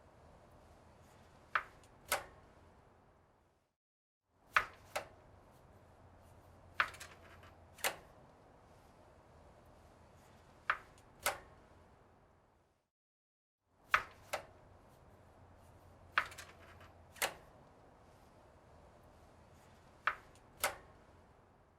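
Bicycle handlebar being turned back and forth, giving sharp knocks, mostly in pairs about half a second to a second apart, about fourteen in all over a faint hiss. The sound drops to silence twice between takes.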